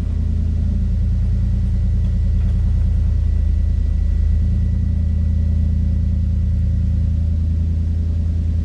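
A steady, low mechanical hum that stays unchanged in pitch and level.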